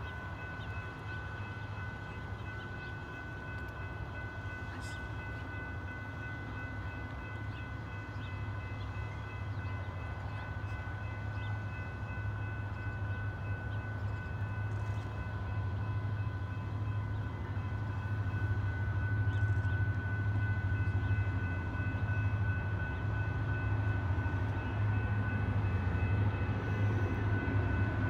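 EMD GP40M diesel locomotive approaching from a distance: a low engine rumble that grows steadily louder, with a thin steady high-pitched whine over it.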